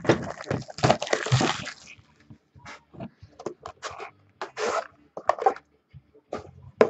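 Cardboard trading-card box being torn open and handled: a couple of seconds of ripping and crinkling, then scattered short scrapes and clicks as the box and its pack are handled.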